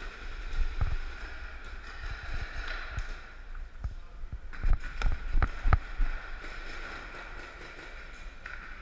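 Rustling and muffled knocks from a body-worn action camera as the player moves, over a steady hum. About halfway through come four or five sharp cracks in quick succession.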